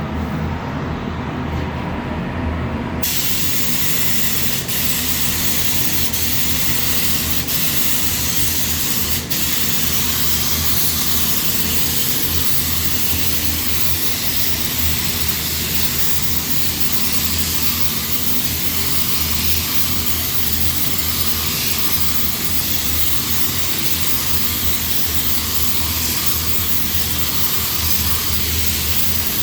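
Spray gun hissing steadily as finish is sprayed onto wooden raised panels, the hiss cutting in about three seconds in, over a steady low rumble.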